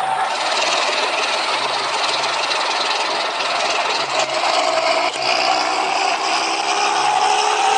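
Economy bus engine running, a dense, rattly mechanical sound with a whine that rises slightly about four seconds in. Its rough note is what the uploader calls a 'batuk berdahak', a phlegmy cough.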